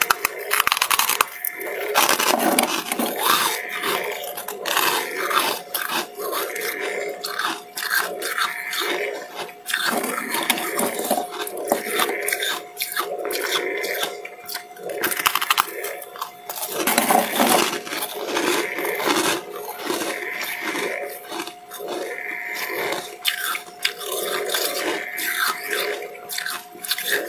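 Freezer frost being bitten and chewed: dense crisp crunches in quick succession, coming in a rough rhythm of about one chew a second, over a faint steady hum.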